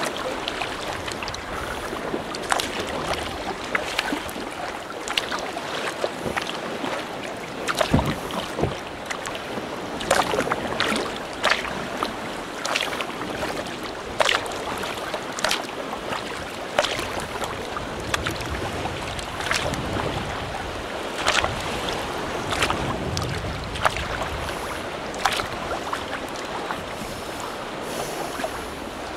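Sea kayak being paddled: a run of short, sharp water splashes from the paddle and the hull over a steady wash of sea water.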